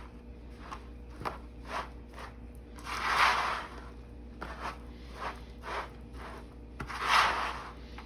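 Spatula stirring Rice Krispies cereal into melted marshmallow in a large bowl: short scraping, rustling strokes, with a longer, louder scrape a few seconds in and again near the end.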